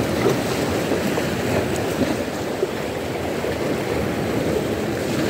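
Waves of a rough sea washing on the shore, a steady rushing noise.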